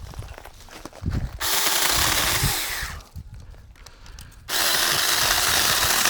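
Saker handheld battery-powered mini chainsaw running and cutting firewood in two bursts: one of about a second and a half, then a pause, then running again from about four and a half seconds in.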